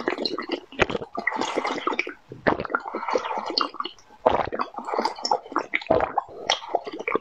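Close mouth sounds of a person sucking liquid from the beak of a bird-shaped glass: a quick, irregular run of wet slurps, gulps and lip smacks.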